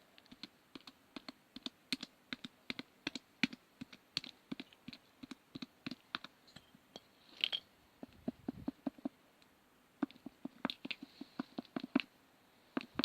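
Non-sticky glitter slime being poked and squished, giving off quick, irregular little clicks and pops, several a second.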